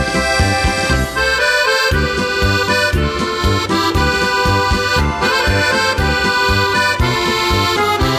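Accordion-led Czech folk music with a steady bass beat, in an instrumental passage without singing.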